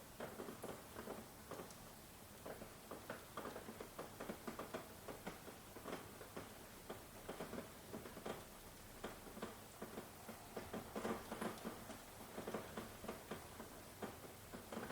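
Rain pattering, with close, irregular drops ticking several times a second over a soft hiss.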